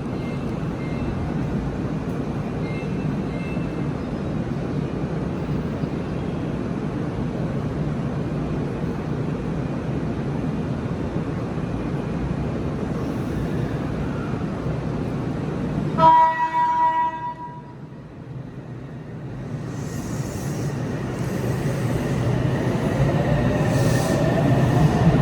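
Steady rumble of a train running, then about two-thirds of the way in a single blast of a Japanese 8000-series train's horn lasting about a second and a half: the unit whose horn has an unusual, off-standard tone. After a brief lull, train noise builds up again and grows louder toward the end.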